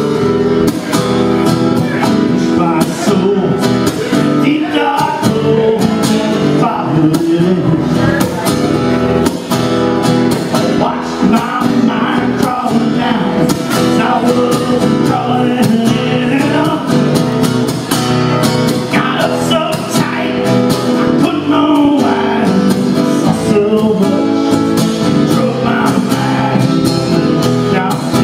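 A man singing while strumming an acoustic guitar, with the music running on without a break.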